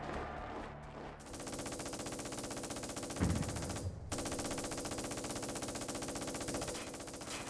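Machine-gun fire in long rapid bursts, starting about a second in, breaking off briefly near the middle, then running on until just before the end. A single heavy low thump sounds about three seconds in.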